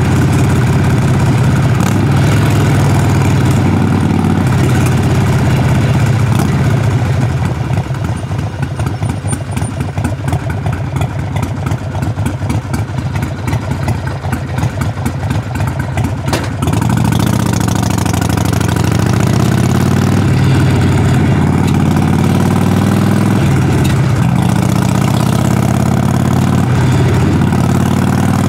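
Harley-Davidson Sportster Forty-Eight's air-cooled 1200 cc V-twin exhaust running. About a third of the way in it drops to a quieter, even pulsing beat for about nine seconds, then gets louder again with the pitch rising and falling as the bike pulls away.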